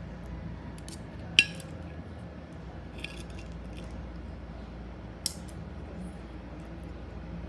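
Hard objects clinking: two sharp clinks about four seconds apart, with a few lighter clicks between them, over a steady low hum.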